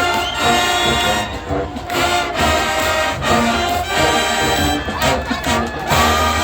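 High school marching band, joined by a middle school band, playing a tune on brass horns with drums beneath: loud, steady, full-band sound.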